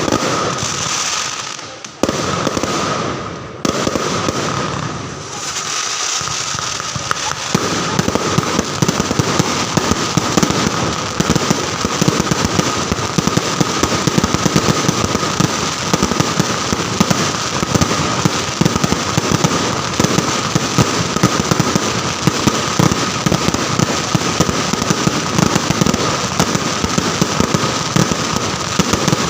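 Fireworks display: loud bursts swelling and fading for the first few seconds. From about seven seconds in, they give way to an unbroken rapid barrage of bangs and crackles.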